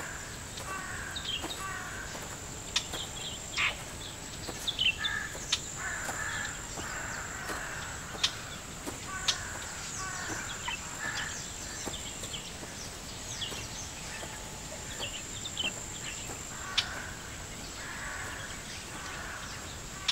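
Outdoor birdsong: many short chirps and calls from several birds over a steady, high, thin insect-like buzz, with a few sharp ticks standing out as the loudest moments.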